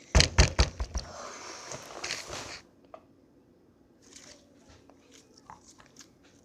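Handling noise from a container of slime: several knocks in the first second, then about a second and a half of rustling, then faint light clicks.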